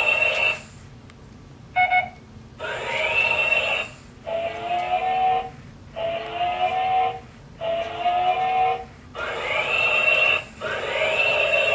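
Toy robot's built-in speaker playing a repeating electronic movement sound effect while it slides backward. Each burst has a hiss with a tone that rises and then holds high, and a lower tone gliding up beneath it. The bursts repeat about every second and a half with short gaps between them.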